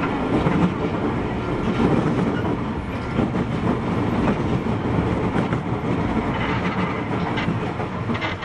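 Running sound heard inside an Osaka Metro Midosuji Line subway car (31621F) under way between stations: a steady rumble of wheels and running gear on the track, with short irregular knocks.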